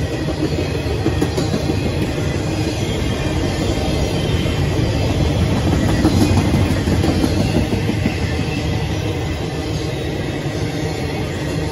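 Intermodal freight cars rolling past close by: a steady rumble and clatter of steel wheels on rail.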